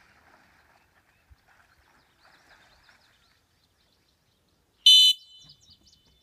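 A single short, shrill blast on a retriever training whistle about five seconds in: the stop whistle that halts the dog as he comes out of the water, so that he can be given a cast.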